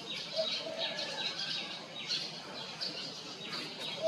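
Birds chirping: many short, falling chirps, several a second, with a few lower held notes among them.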